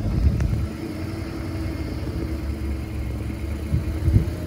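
Gas engine of a 2005 Chevrolet refrigerated box truck idling steadily, with gusts of wind rumbling on the microphone.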